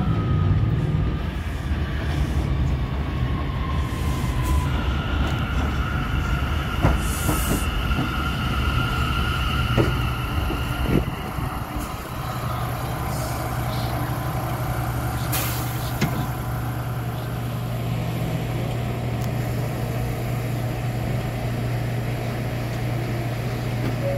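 New York City Subway J train arriving at an elevated platform. The motors whine, falling in pitch as it slows, then a steady high squeal and a few clanks come as it brakes to a stop. About halfway through it settles into a steady low hum while standing at the platform.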